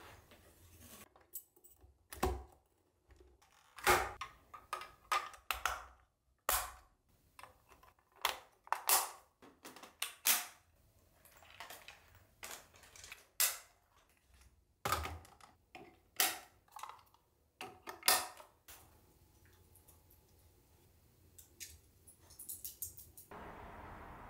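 Dyson Digital Slim cordless stick vacuum parts clicking and knocking as the wand, cleaning tools and floor dock are snapped and fitted together, a string of irregular sharp clicks. Near the end the clicks stop and a soft steady hiss takes over.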